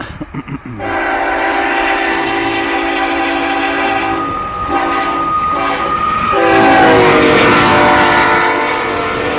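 Freight locomotive's air horn sounding a loud multi-note chord: a long blast starting just under a second in, two brief breaks, then another long blast whose pitch drops as the locomotive passes.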